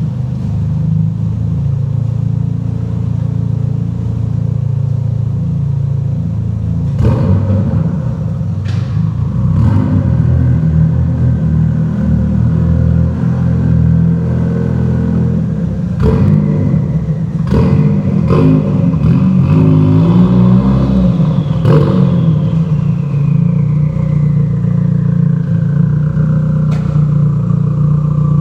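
Turbocharged four-cylinder car engine (Mazda BPT swap with a Garrett GT2860RS turbo, on E85) running with a turbo whistle. Several sharp short sounds occur through it, and over the last few seconds the whistle falls steadily in pitch as the turbo winds down.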